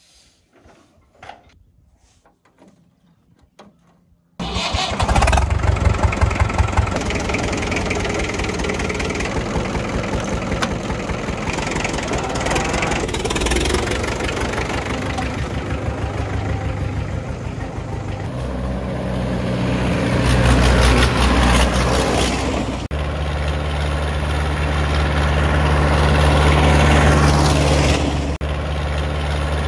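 Tractor diesel engine comes in suddenly about four seconds in and runs loud, with a fast steady firing beat. Its speed rises and falls twice, then it settles to a steady run.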